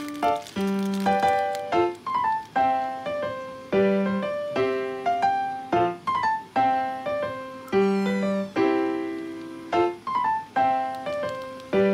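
Background piano music: a light melody of struck notes that ring and fade, over low notes repeated about every two seconds.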